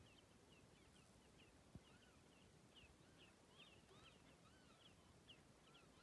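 Faint distant birdsong: many short high chirps several times a second, joined from about two seconds in by slower, lower arching whistled notes. One soft knock about two seconds in.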